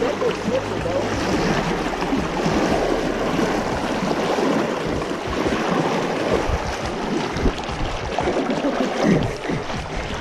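River water rushing and splashing around the legs of someone wading across a slippery, rocky river.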